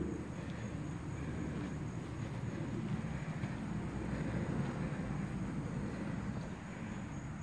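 Steady background noise, a low rumble with nothing standing out from it.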